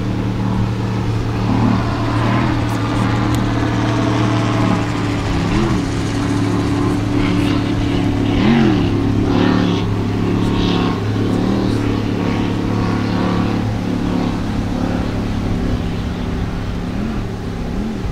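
Offshore racing powerboat engines running at speed with a steady drone. Several times the pitch briefly jumps up and drops back, the engines revving as the hull leaps the chop and the propellers lift clear of the water.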